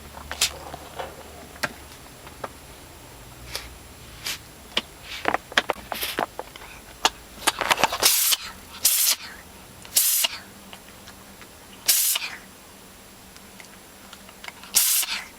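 A cat sneezing over and over: about five sharp, hissy sneezes a second or two apart in the second half, after a run of small clicks. The sneezing comes from an upper respiratory tract infection.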